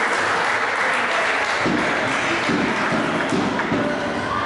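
Crowd noise in a sports hall: a dense, steady wash of many voices and clapping, with a few sharp knocks through it.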